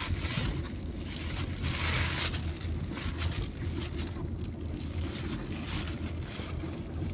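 Thin plastic bag rustling and crinkling in irregular handfuls as it is pulled back from a cardboard box, over a steady low rumble from the car.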